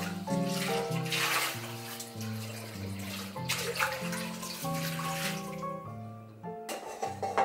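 Tap water running into and splashing around a stainless steel mixing bowl as it is rinsed in a kitchen sink, in surges as the bowl is turned under the stream, over soft background music. The water stops near the end, followed by two sharp knocks as the bowl is handled.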